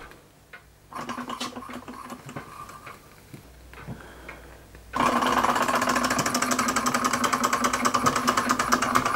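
Hundred-year-old Bing single-cylinder hot air engine turning over under its burner's heat: about halfway through, a fast, steady mechanical clatter of the piston and flywheel starts suddenly. The engine is very close to running on its own.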